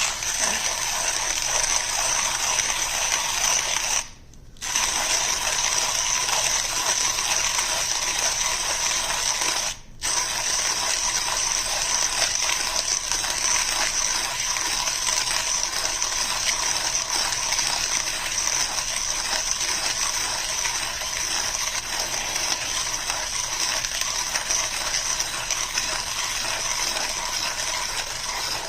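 Flair manual coffee grinder being cranked by hand, its burrs crunching through light-to-medium roast coffee beans in a steady grinding rattle. It pauses for about half a second around four seconds in and again very briefly near ten seconds.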